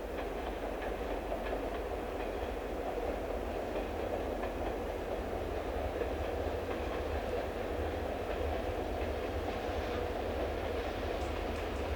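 Train running past on the line: a steady rumble of wheels on rail with faint clicks over the rail joints.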